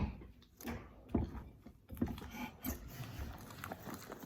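Homemade slime being mixed and handled: a sharp knock at the start, then irregular soft knocks and rustling handling sounds.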